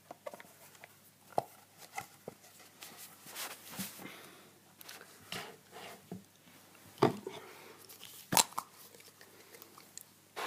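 Handling sounds of cleaning an iPhone 5 with screen cleaner and a cloth: scattered light clicks and short rubbing sounds, with two louder sharp clicks about seven and eight and a half seconds in.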